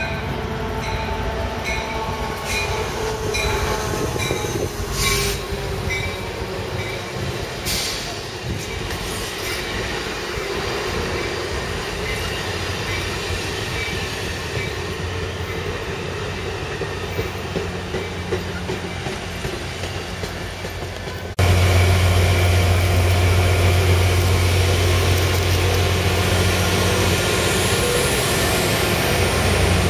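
Amtrak California double-deck passenger cars rolling slowly past, with a few clanks and a thin wheel squeal. About two-thirds of the way in this gives way abruptly to the louder, steady low drone of an EMD F59PHI diesel locomotive running while stopped beside the platform.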